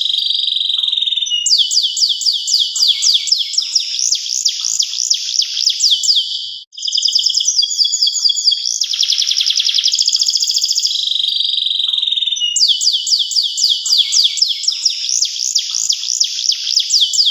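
Canary singing a long song of rapid trills and quickly repeated falling sweeps, breaking off briefly about seven seconds in and then starting a new phrase.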